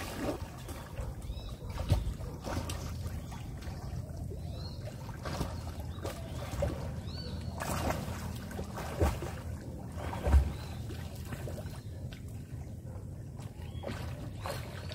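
Swimmers splashing in calm estuary water, over a steady low rumble, with a few short low thumps, the strongest about ten seconds in.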